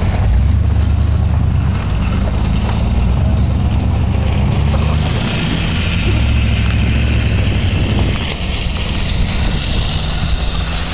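A truck driving along, its engine giving a steady low drone under a constant wash of road and wind noise; the noise eases slightly near the end.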